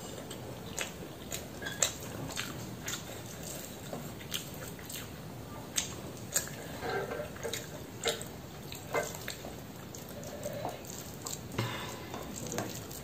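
Fingers mixing rice and curry on a stainless steel plate: irregular soft wet squishes and light clicks of fingertips against the steel, with some chewing.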